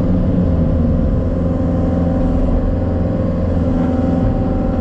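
Engine running at a steady speed: a constant low hum with a few steady tones and no change in pitch.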